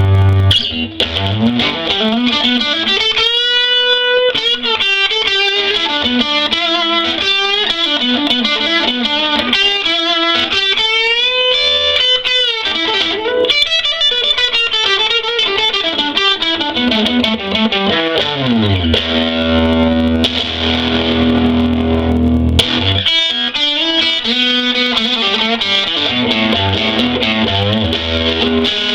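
Electric guitar, a 1983 Fender Stratocaster, played through a 1956 Fender Princeton tweed amp turned up into mild breakup. Single-note lead lines with string bends, then a sustained low chord about two-thirds of the way through before the lines resume.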